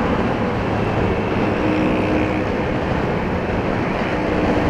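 Kawasaki Z900RS inline-four engine running at a steady highway cruise, mixed with wind rushing over the helmet-mounted microphone. The engine note holds a steady pitch.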